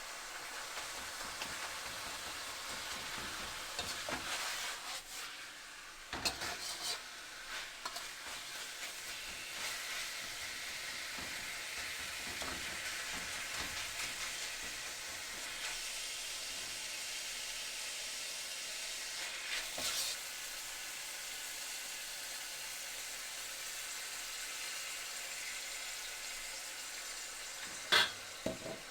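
Food frying in a hot pan: a steady sizzle, with a few short knocks and scrapes of a cooking utensil against the pan, a cluster a few seconds in and single ones near the middle and near the end.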